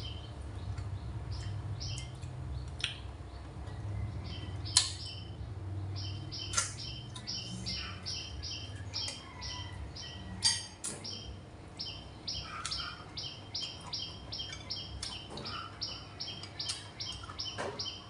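A bird chirping over and over in rapid, even runs of short chirps, about three a second, with a few sharp clinks of a spoon and chopsticks against china bowls, the loudest about 5, 6.5 and 10.5 seconds in.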